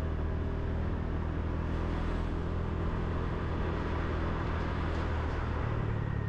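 Small motorbike engine running steadily under way, with road and wind noise; the engine note shifts slightly near the end.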